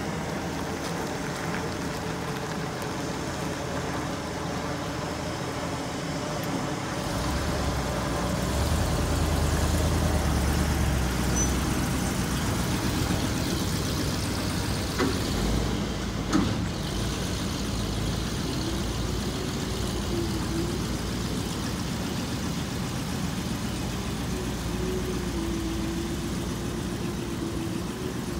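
Ford F700 truck's 7.0 L V8 engine idling steadily. The rumble swells louder for a few seconds about a quarter of the way in, and two short knocks come near the middle.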